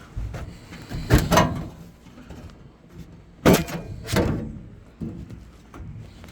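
Microwave oven's metal outer cover being slid off and handled: several knocks and scraping clatters, loudest about a second in and again around three and a half seconds in.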